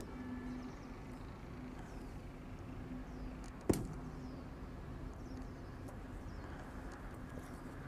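A single sharp slap about four seconds in: a bare fist striking the open palm in front of the knees in a full squat, a Shaolin kung fu hand strike. Under it, a faint steady hum.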